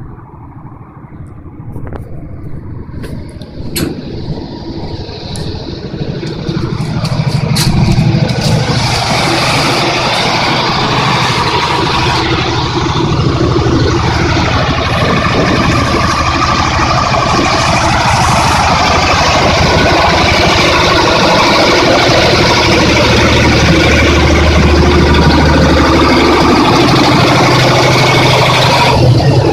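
Large multi-cylinder MAN engine running steadily. It grows louder as it is approached and is loud from about seven seconds in.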